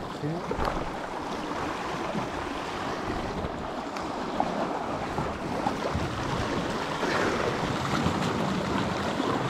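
Sea surf washing against the shore with wind, a steady even rushing noise.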